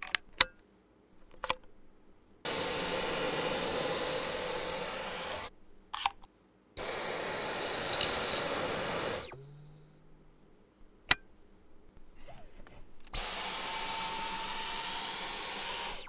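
Dyson V11 cordless stick vacuum running in three separate bursts of steady airflow rush with a high motor whine, each starting and stopping abruptly. A few sharp plastic clicks come in the first second and a half as a tool is fitted to the wand.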